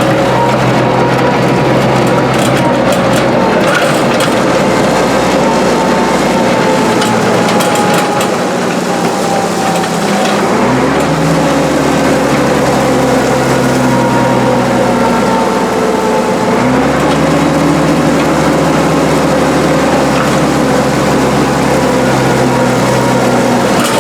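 International 1066 farm tractor's diesel engine running under load while pulling a box scraper over a gravel road. Its note shifts about halfway through and again a few seconds later.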